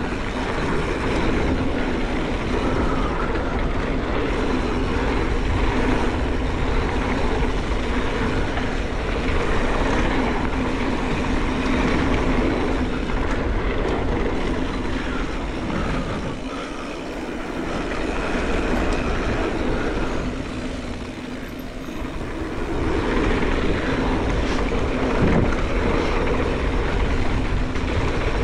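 Mountain bike descending a dirt trail at speed: wind buffeting the microphone over the tyres rolling on dirt and the bike's rattling, easing off briefly twice.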